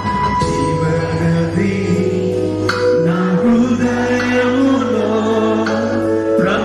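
Men singing a Christian worship song into microphones, with musical accompaniment and held, gliding notes.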